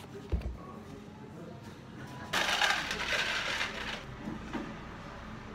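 Ice being scooped out of an ice maker's bin into a plastic cup, a rough rattling crunch lasting about a second and a half a little past the middle. A short low knock comes near the start.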